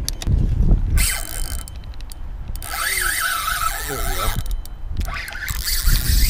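Spinning reel whining as its handle is cranked to retrieve a lure. The whine rises and falls in pitch with each turn, mostly in the middle of the stretch. There is rumble from wind on the microphone at the start and near the end.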